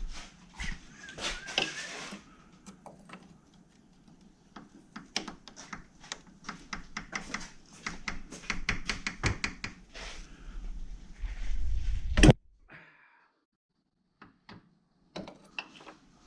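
Hand tools clicking and clinking against metal fittings, with a quick run of clicks and one loud knock about twelve seconds in.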